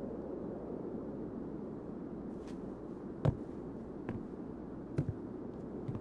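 Footsteps knocking on wooden porch steps, a few irregular steps with the loudest about three seconds in, over a steady low background rumble.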